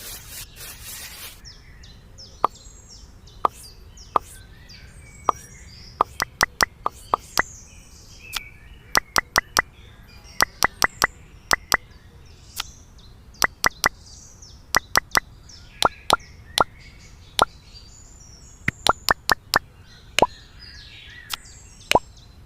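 Mini bricks being set down and tapped into place, making sharp hard taps that ring briefly, in irregular runs of two to four.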